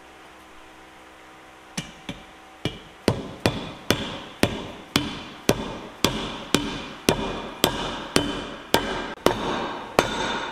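Hammer striking metal: two knocks, then a steady run of ringing blows about two a second that stops shortly before the end.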